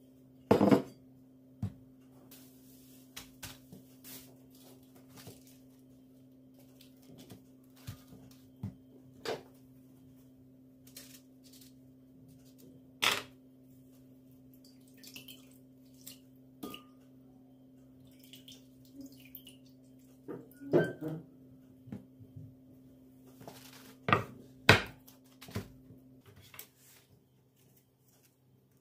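Kitchen work: scattered clinks and knocks of dishes and utensils being handled, with a few louder knocks near the start, in the middle and near the end. A steady low hum runs beneath and stops shortly before the end.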